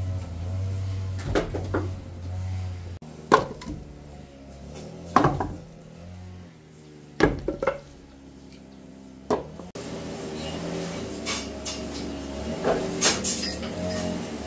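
A string of separate sharp knocks and clatters of hard household objects being handled and set down, over a steady background hum.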